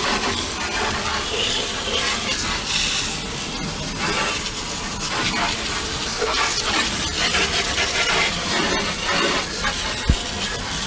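Garden hose spraying water into the hull of an aluminum jon boat, a steady rushing spray and splash, with a single knock near the end.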